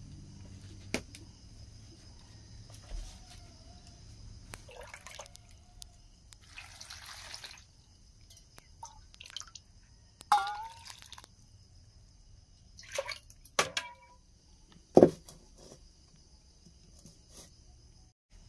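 Steel kitchen vessels clinking and knocking now and then, with water poured and dripping from a steel bowl. The loudest knock comes near the end. Insects chirr steadily in the background.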